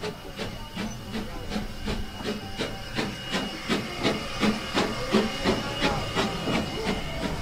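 Monson 3, a two-foot-gauge Forney steam tank engine, working steam with an even beat of exhaust chuffs, about three to four a second, over a steady hiss of steam. The chuffs grow louder from about halfway through as the locomotive runs into a tunnel.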